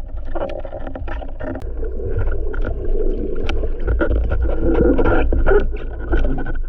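Muffled underwater water noise heard through a waterproof camera housing: a steady deep rumble and rush of moving water as a spearfisher handles a speared fish and swims upward, with many scattered clicks and knocks of gear and handling.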